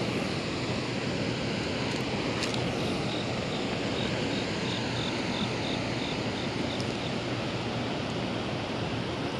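Steady rushing of churning tailwater released through a hydroelectric dam with its generators running.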